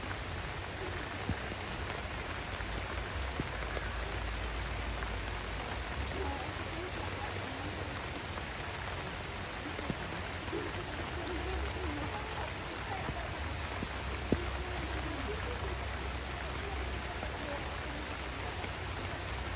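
Heavy downpour of rain, a steady even hiss, with a few sharp taps here and there.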